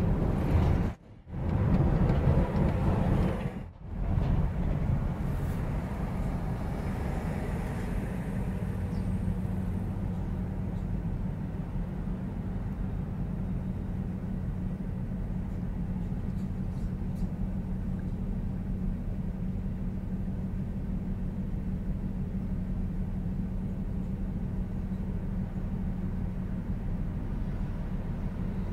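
Car driving, with engine and road noise, for the first few seconds, broken by two short drop-outs. Then the car's engine idles with a steady low hum while the car stands at a red light.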